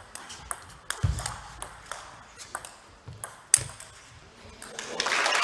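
Table tennis ball ticking back and forth on the paddles and table in a rally: a quick run of sharp clicks about three a second, the loudest about three and a half seconds in. There is a low thump about a second in, and applause breaks out near the end as the point is won.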